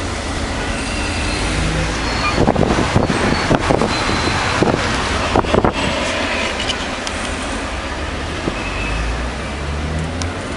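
Taxi and surrounding city traffic heard from inside the cabin: a steady low engine and road rumble. A run of sharp knocks and clicks comes between about two and six seconds in.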